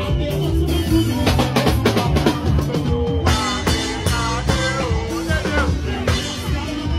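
Upbeat praise music with a busy drum-kit beat.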